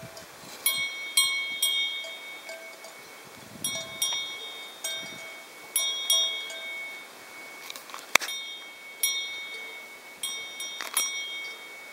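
Brass cowbell on a calf's collar clanking in small clusters of two or three strikes with pauses, each strike ringing briefly, as the calf moves its head while licking another calf. One sharp knock about eight seconds in is the loudest sound.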